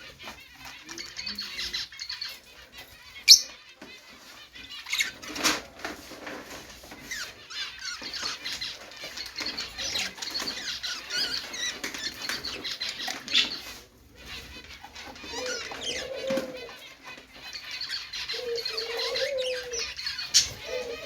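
Budgerigars chattering and warbling continuously in a fast, wavering twitter, with a few sharper, louder chirps. Lower wavering calls join in the last few seconds.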